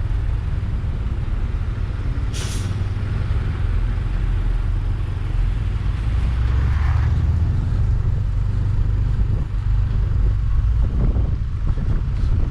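Bus diesel engine running with a low, steady rumble. About two seconds in comes a short, sharp hiss of released air, typical of the bus's air brakes, and a softer hiss follows around the middle.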